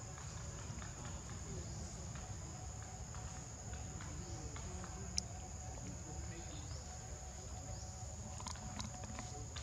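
Steady high-pitched insect chorus over a low rumbling background, with one sharp click about five seconds in.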